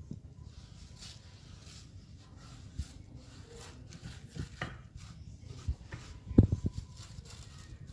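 Kitchen handling sounds of harcha dough being worked in a frying pan: light rubbing and scattered soft knocks, with a quick cluster of thumps about six and a half seconds in, over a low steady hum.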